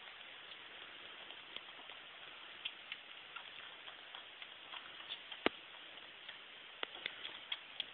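A week-old kitten sucking hard on a milk bottle: irregular small wet clicks and smacks over a steady hiss, with one louder click about halfway through.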